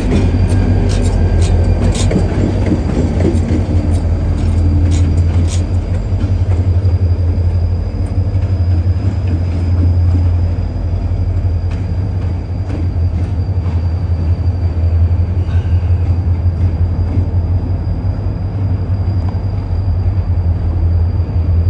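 Union Pacific diesel locomotive 1743's engine running with a strong, steady low drone as it moves along with covered hopper cars. Sharp clicks of steel wheels over rail joints come in the first few seconds, then the drone carries on alone, with a faint steady high whine above it.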